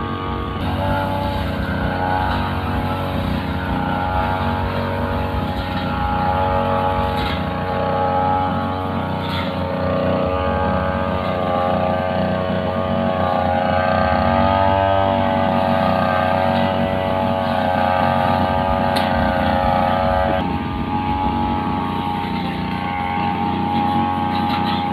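Two-stroke RIU brushcutter with a cutting blade running at high revs, its engine note wavering up and down as it is worked. The pitch drops lower about twenty seconds in.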